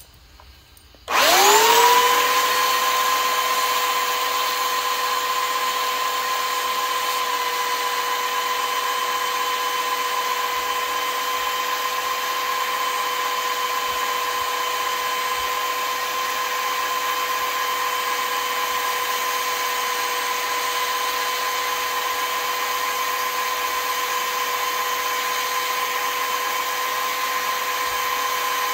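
Belt sander switched on about a second in, its motor quickly spinning up to a steady whine, then running evenly while a screw-in arrow field point is ground to a taper against the belt.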